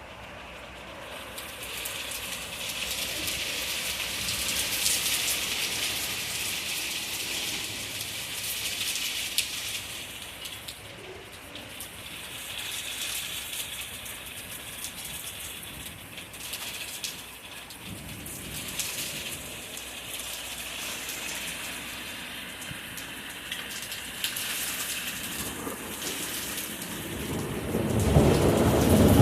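Thunderstorm: steady rain hissing on surfaces, with a loud low rumble of thunder building near the end.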